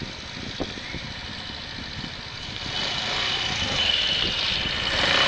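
A 125 cc motorcycle engine running while standing still: a fast low idle pulse, growing louder about halfway through with a steady high whine. The rider is recording it for an abnormal noise.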